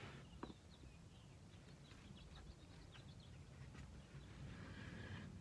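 Near silence: faint background tone with a few faint, short high chirps and a light tick about half a second in.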